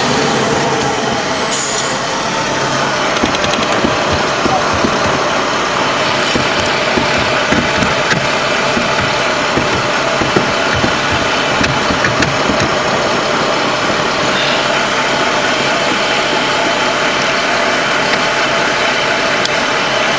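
LAV III armoured vehicle's diesel engine running steadily, heard from inside the vehicle, with scattered sharp cracks over it.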